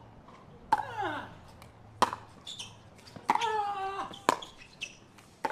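Pickleball rally: hard paddles popping against the plastic ball about once a second, with sharp high squeals of court shoes between hits, one sliding down in pitch.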